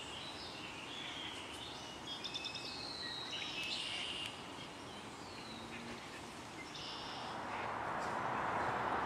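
Several birds singing and chirping outdoors, with a quick trill a little over two seconds in, over a steady rushing background noise that grows louder from about seven seconds in.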